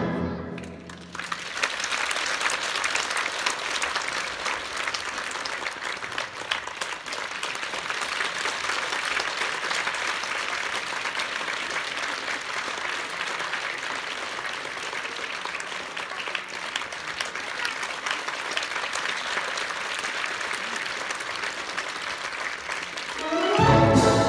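Audience applauding steadily in a theatre for about twenty seconds after the orchestra's music dies away, about a second in. Near the end the orchestra starts playing again, louder than the applause.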